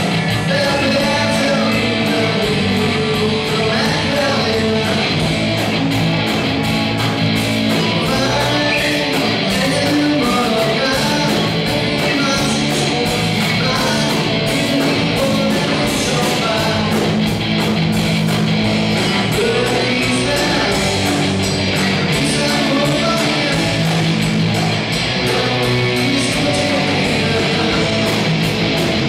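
Live rock band playing a song: electric guitars, bass guitar and drums, loud and steady, with cymbal strokes keeping an even beat.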